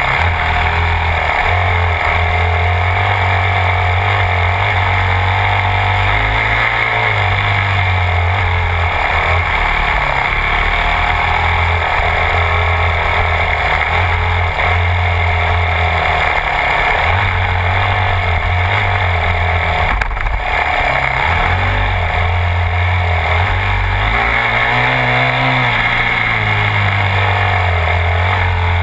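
Yamaha YZ250F dirt bike's four-stroke single-cylinder engine running close to the microphone, the throttle opening and closing so the engine note rises and falls, over a steady rush of wind and riding noise.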